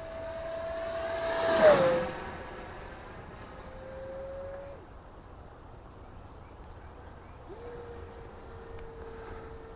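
E-flite Viper 70 mm electric ducted-fan jet making a full-throttle pass: the fan's whine swells to its loudest about a second and a half in and drops in pitch as it goes by, then fades out near five seconds. The whine comes back, steady, from about seven and a half seconds.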